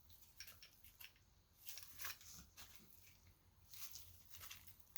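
Faint, scattered clicks and light rustles of small items being handled: earrings and their packaging being picked over.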